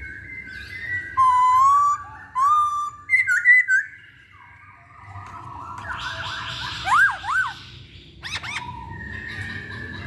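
Masked laughingthrush (Hongkong poksay) singing: loud whistled phrases of sliding notes, then a noisier chattering stretch with rising-and-falling whistles about halfway, and a long steady whistled note near the end.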